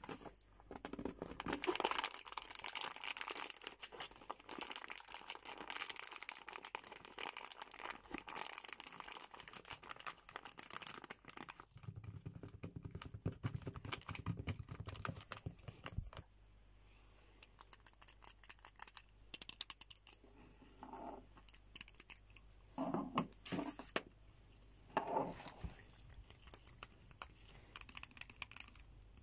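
Fingers crinkling, scratching and tapping a soft plastic wet-wipes packet, a dense run of rapid crackles and nail clicks. After about sixteen seconds it thins to sparser, quieter taps and rustles.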